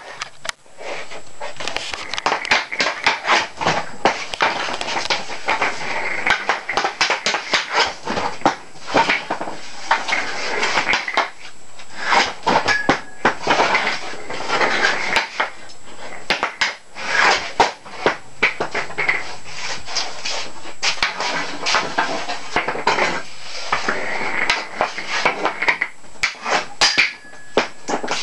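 Hockey sticks clacking against a roller hockey puck and the floor in quick, irregular taps, with the puck sliding and rattling between strikes.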